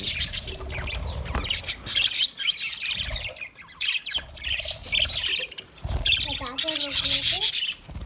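A flock of budgerigars chirping and chattering, with squawks and many short sharp calls overlapping.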